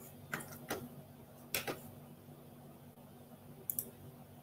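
A few faint, sharp clicks, a pair in the first second, a louder pair a little later and a quick light double tick near the end, over a low steady hum.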